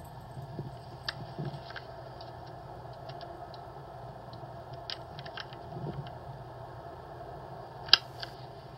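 Steady low room hum with scattered light clicks and ticks. One sharp click comes near the end, followed by a smaller one.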